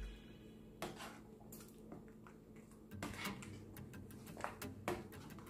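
Metal spoon clicking and scraping against the pan while stirring tomato sauce: scattered light knocks, several close together in the second half, over a faint low hum.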